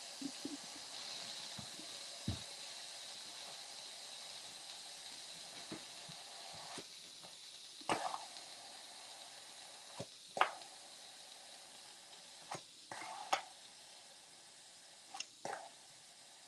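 Electric pressure cooker venting steam through its pressure-release valve: a steady hiss that slowly fades as the pressure drops. A few light clicks and knocks come through now and then.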